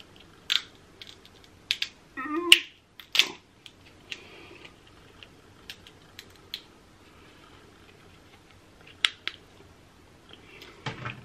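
Close-miked eating: king crab shell cracking and snapping in scattered sharp clicks, with wet chewing and lip smacking. The loudest crack comes about two and a half seconds in.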